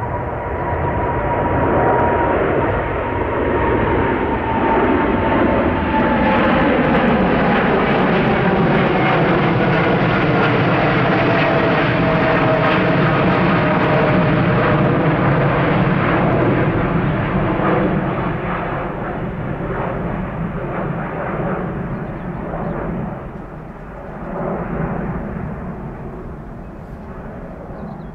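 American Airlines Boeing 787-9's twin GE GEnx-1B turbofans at take-off climb power passing overhead: a steady jet rumble with whining fan tones that slowly fall in pitch. It builds to its loudest in the middle and fades away near the end.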